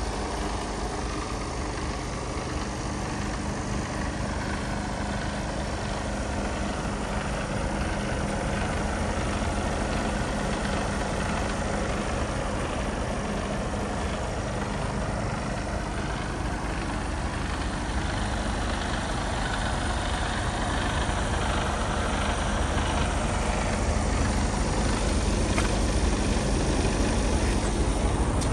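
Mercedes-Benz Actros 2445 tractor unit's 450 hp Euro 6 diesel engine idling steadily, growing a little louder in the last few seconds.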